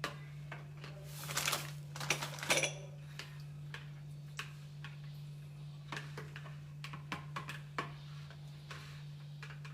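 Kitchen utensils and dishes knocking and clinking, with a stretch of rustling and scraping about a second in, over a steady low hum.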